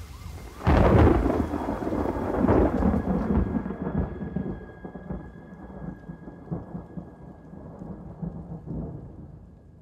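A thunderclap breaks about a second in over heavy rain, then rumbles and slowly fades; the rain hiss drops away after a few seconds, leaving the rumble and a faint steady high tone.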